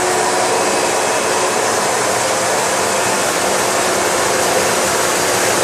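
Hoover bagless twin chamber upright vacuum cleaner running steadily at full speed: a loud even rush of air with a steady motor whine.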